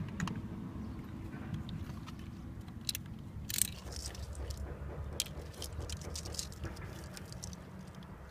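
Faint handling noises of the keyless entry module and its wiring being fitted in place: a few short sharp clicks and light rustling over a low steady hum.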